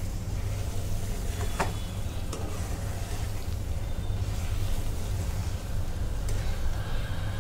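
A spatula stirring and scraping thick grated bottle gourd halwa around a metal kadai, with a faint sizzle of ghee, over a steady low rumble. A couple of sharp clicks of the spatula against the pan, about one and a half seconds in and again near the end.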